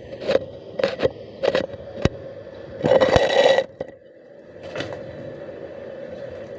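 Metalwork during welding: a run of sharp metal knocks and scrapes, with a short crackling burst about three seconds in, over a steady hum.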